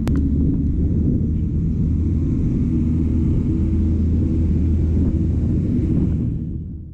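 A steady, loud low rumble, vehicle-like, fading out in the last second.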